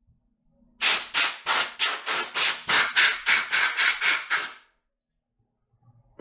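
Compressed-air blow gun hissing in a rapid string of short blasts, about three a second, starting just under a second in and stopping after about four seconds. It is blowing lacquer thinner and debris off a freshly cleaned connecting rod's bearing surface.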